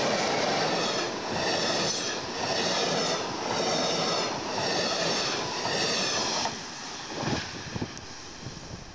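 Electric passenger train of double-deck coaches passing close by at speed: a loud wheel-and-rail rush with a rhythmic clatter about once a second as the bogies go by. The sound drops abruptly about six and a half seconds in, leaving a fainter rumble with two sharp knocks.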